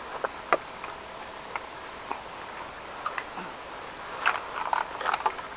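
Footsteps in sandals through water hyacinth and dry stalks: scattered crackles and clicks, then a denser run of crackling and rustling about four seconds in.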